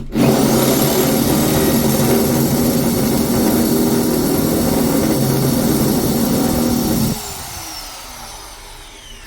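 Electric hammer drill with a masonry bit, set to reverse, running steadily against a concrete block. It stops about seven seconds in, and the motor whine falls away as it spins down.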